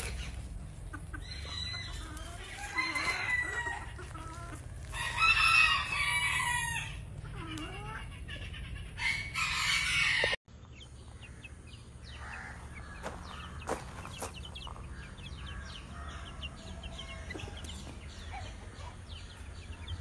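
Bantam roosters crowing, three calls in the first ten seconds, the loudest about five seconds in. After a sudden break about ten seconds in, quieter chicken clucking with small clicks.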